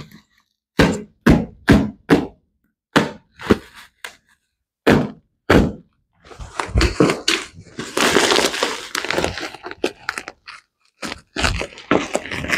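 A run of sharp thunks and cracking knocks, about two a second in short groups, as packaging around a storage seat is handled and opened. In the middle come about four seconds of rustling and tearing of the packaging, then more knocks near the end.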